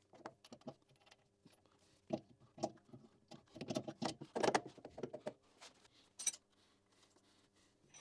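Scattered light metal clicks and knocks as a machine vise is shifted into place on a milling-machine table and a washer and nut are fitted onto its T-slot clamping bolt. The clicks come thickest in the middle.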